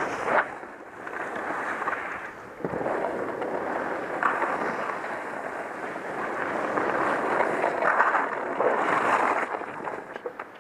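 Skis sliding and scraping over snow, a continuous rushing hiss that swells and fades, with wind buffeting a helmet-mounted microphone.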